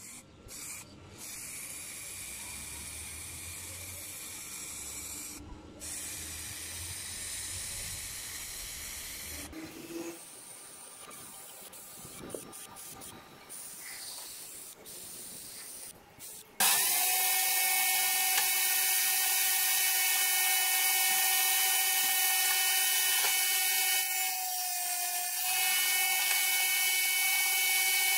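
An aerosol can of acrylic spray paint hisses in bursts with short pauses. About two-thirds of the way in, this gives way abruptly to a louder power saw: a circular saw mounted under a board as a table saw, its motor running at a steady, even pitch.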